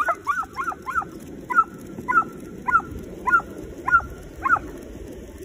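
Excited dog giving quick, high-pitched yips and whimpers, fast at first and then about two a second, stopping about four and a half seconds in, over a steady rumbling noise.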